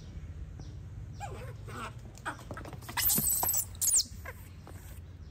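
Animal cries: several short calls falling in pitch, then a loud shrill squeal about three seconds in and a second short one just before four seconds.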